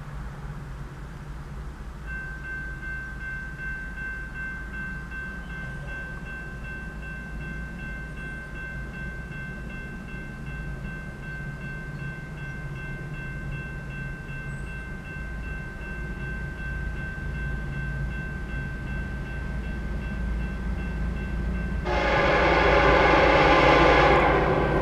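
Railroad crossing warning bell starts ringing about two seconds in and rings steadily as the gates come down, while the noise of the approaching train slowly builds. Near the end the lead locomotive, a BNSF EMD SD70ACe, sounds one loud horn blast of about two and a half seconds.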